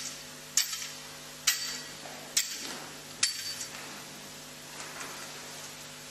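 Metal censer (thurible) swung on its chains, giving four sharp metallic clinks a little under a second apart, then stopping; this is the incensing of the Gospel book before the Gospel is read.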